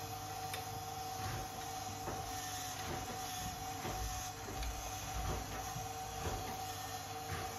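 Light metallic clicks, roughly one a second, as the metal control levers in the cab of a Meccano model Unimog 411 are moved by hand. A steady two-tone hum runs underneath.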